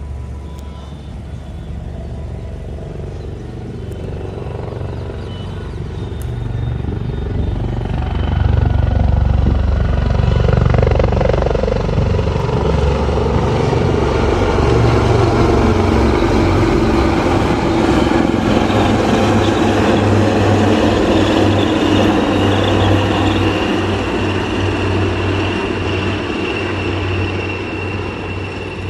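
Aircraft flying over: a loud engine roar that builds for several seconds, holds with a slowly falling pitch, then fades as it moves away.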